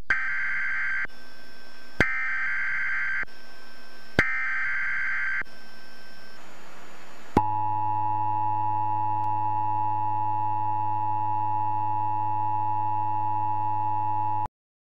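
Harsh electronic tones that switch back and forth about once a second, with a click at each change, then a steady test-pattern tone with a low hum underneath, the kind played over colour bars. The tone cuts off abruptly near the end.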